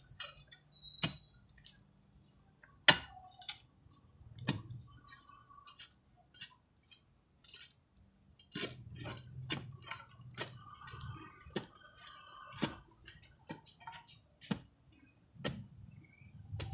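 A metal digging tool striking hard ground again and again, digging a deep ube (purple yam) tuber out by hand. The strikes are sharp and irregular, the loudest about three seconds in.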